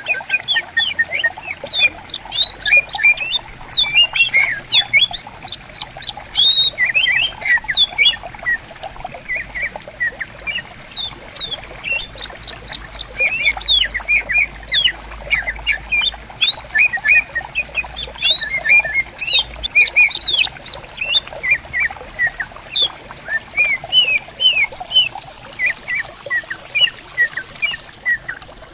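Green leafbirds (cucak ijo) singing back and forth in rapid, dense strings of sharp chirps and whistled notes, over the steady babble of a stream.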